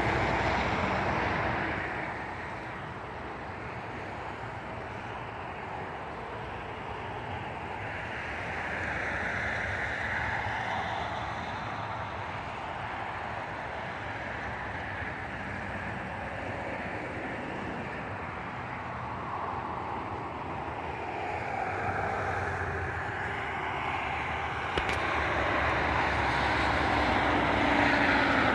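Boeing 757 jet airliner on landing approach, its engines a steady rushing noise that grows louder over the last several seconds as it comes closer.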